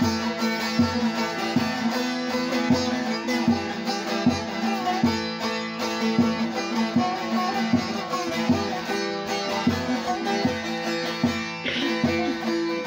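Solo bağlama (long-necked Turkish saz) played as an instrumental passage between sung verses of a folk song: a plucked melody in regular strokes, about two a second, over ringing drone strings.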